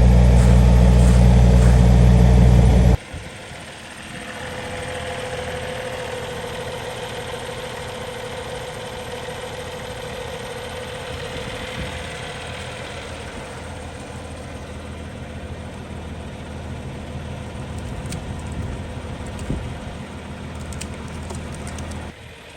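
A vehicle engine idling loudly and steadily close by, cutting off abruptly about three seconds in. A quieter steady engine drone follows.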